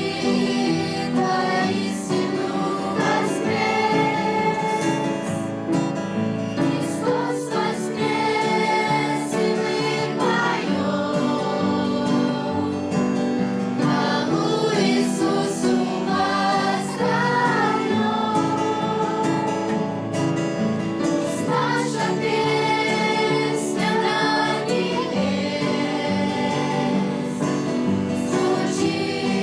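A choir singing a Christian song with instrumental accompaniment.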